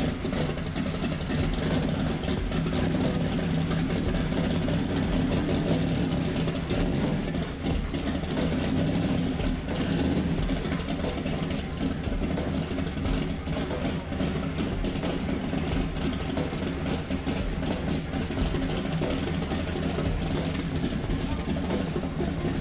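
Twin-turbo, alcohol-fuelled LS V8 of a Fox-body Mustang drag car idling steadily.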